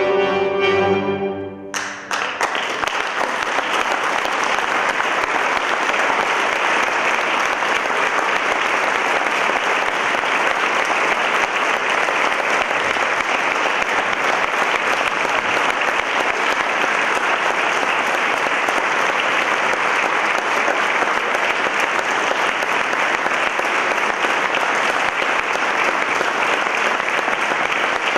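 A string chamber orchestra with solo accordion plays the closing chords, which cut off about two seconds in, and the audience breaks into steady applause that carries on to the end.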